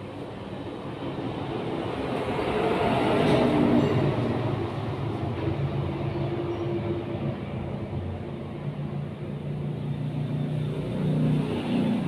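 A steady low engine hum with a rushing noise that swells to a peak about three to four seconds in, then eases off.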